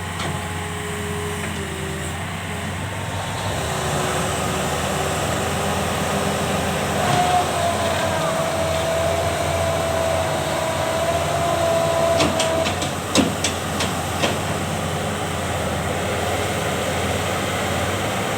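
Heavy diesel earthmoving machinery, a bulldozer and excavator, running steadily under load with a whine that shifts in pitch partway through. A cluster of sharp metallic clanks comes about two-thirds of the way in.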